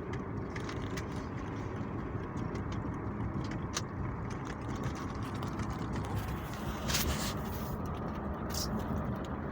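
Steady road and engine noise inside a moving car, with a few brief clicks.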